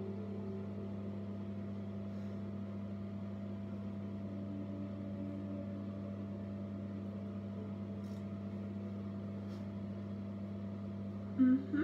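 Steady low electrical hum, with a few faint light ticks and a brief, louder pitched sound near the end.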